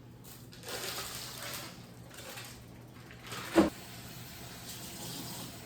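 Kitchen handling sounds at the counter: a brief soft rustle about a second in, then a single sharp knock about three and a half seconds in.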